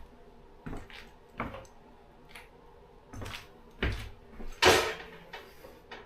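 Kitchen handling noises: a series of separate knocks and clatters, with a louder, short rushing burst about two-thirds of the way through.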